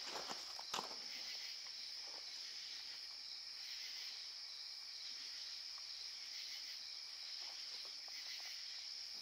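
Steady high-pitched chorus of night insects droning without a break, with a few sharp handling clicks in the first second.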